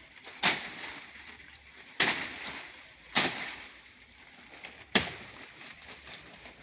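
Machete chopping into a banana plant's stalk with four sharp strikes, spaced unevenly over a few seconds, to cut down the bunch.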